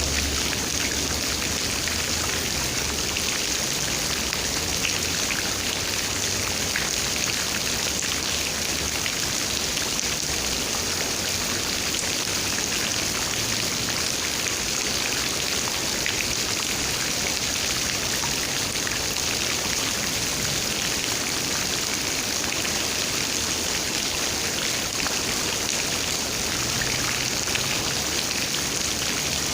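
Steady rain falling, a dense patter of raindrops hitting surfaces.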